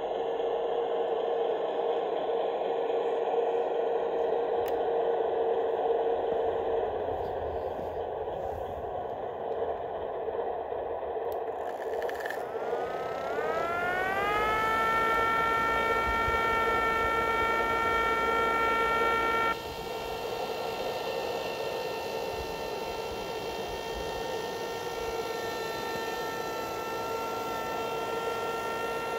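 The electric motor of a G-scale model rotary snow blower car spins up about halfway through, its whine rising over a couple of seconds, then runs at a steady high whine of several tones. Before that there is only a steady mechanical hum.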